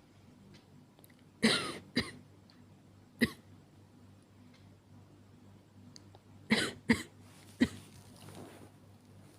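A woman's acted coughs, six short sharp ones in groups: two about a second and a half in, one more a second later, then three close together around seven seconds in.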